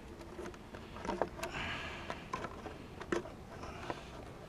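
Handling noises from an RC buggy: several light clicks and knocks as its plastic body shell is handled and the car is set down on the tarmac, with no motor running.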